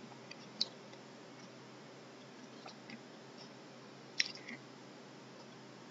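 Faint wet squishing, scrapes and clicks of a perforated metal spatula stirring thick ground masala paste in a stainless steel pan, with a sharper tick about half a second in and another about four seconds in.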